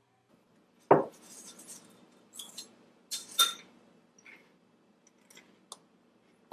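A spoon clinking and scraping in a bowl as mayonnaise and water are stirred together, with a dull knock about a second in and lighter, scattered clinks after it.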